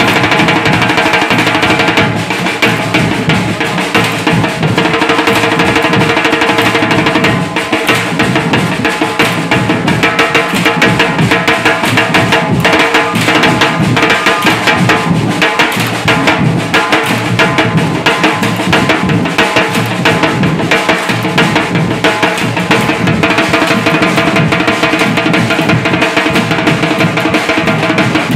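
Drums played in a fast, dense rhythm without a break.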